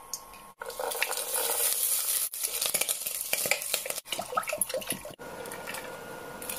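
Cooking in a stovetop pot: food sizzling in hot oil and being stirred with clinks against the pot, then water poured in. It comes in short pieces, each cut off suddenly.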